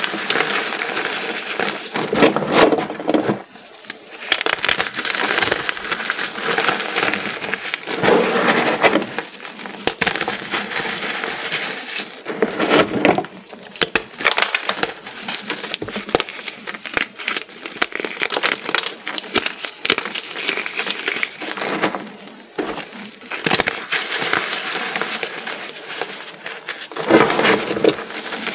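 Many small pieces of reformed, dyed gym chalk being crushed together: dense, steady crunching and crackling, with louder crunches now and then.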